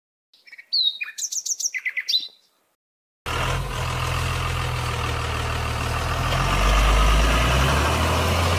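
Birds chirping in several quick, high phrases for about two seconds. After a short silence, a truck engine sound cuts in abruptly about three seconds in and runs steadily, its low hum swelling for a moment near the end.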